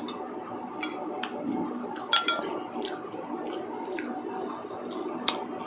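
Eating utensils clinking and scraping against a bowl of lomi noodle soup, a handful of separate sharp clinks, some with a brief ring, the loudest about two seconds in and again near the end.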